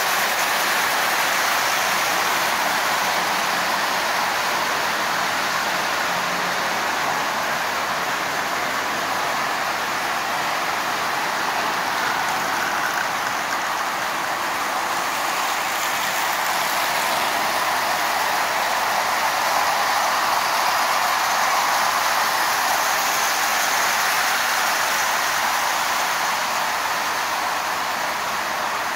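Several Marx toy trains running at once on three loops of three-rail tinplate track: a steady, even rush of wheels running on the metal rails.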